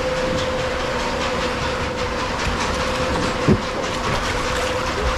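Waterslide ride: a rider's raft sliding through the slide in running water, a steady rushing noise with rapid rattling clicks and a steady hum, and one brief loud sound about three and a half seconds in.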